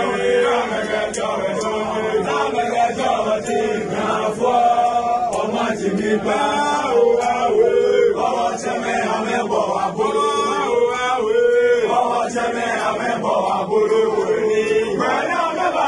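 A group of men chanting a Ga kpaa song together, in the Homowo kpaashimo tradition. Many voices hold and change notes without a pause.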